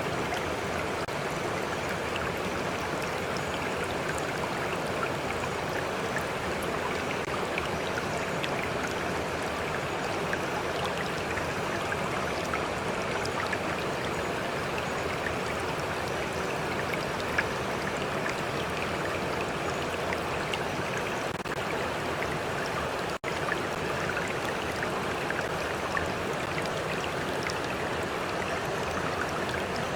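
Stream water flowing steadily, an even rushing sound flecked with small splashes and droplets. The sound drops out for an instant about three quarters of the way through.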